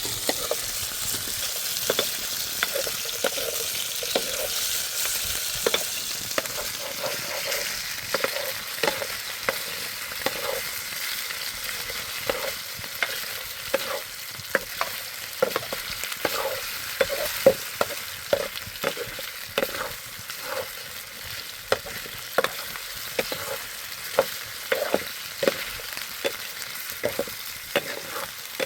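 Food sizzling as it fries in a pan: a steady hiss with many small clicks and taps from stirring, the taps coming more often in the second half.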